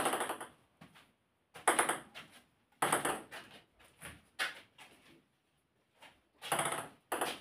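Table tennis ball knocks against bat and table, about six sharp clicks spaced a second or so apart, each with a short ring off the shed walls.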